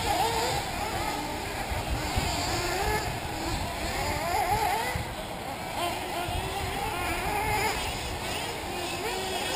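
Several 1/8-scale nitro RC buggies' small two-stroke glow engines revving up and down around the track, their high whines rising and falling and overlapping, over a low rumble.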